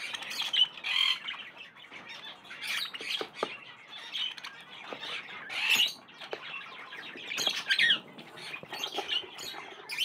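Budgerigars chirping and squawking in a series of short, shrill calls, with a few light clicks in between.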